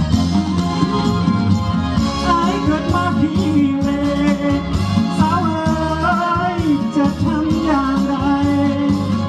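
Live band music with a singer's voice, the melody wavering on held notes.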